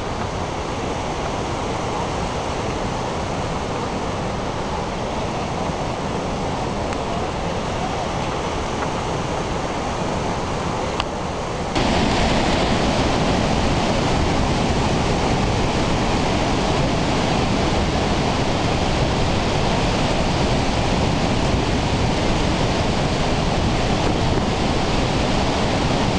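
Steady rushing noise of the Horseshoe Falls at Niagara, water pouring over the brink and churning below. About twelve seconds in it jumps abruptly to a louder, steady rush.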